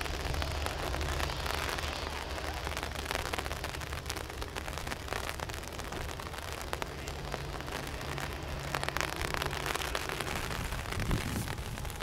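Boeing 787-9 jet engines running as the airliner rolls out on the runway after landing: a steady rushing noise over a low hum.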